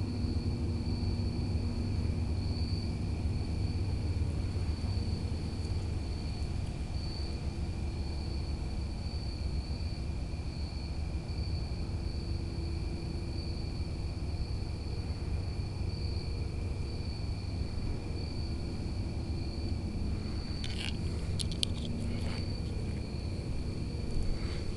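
An unexplained steady, turbine-like drone: a constant low rumble with a high whine holding two steady pitches, the upper one pulsing gently. A few short sharp clicks come near the end.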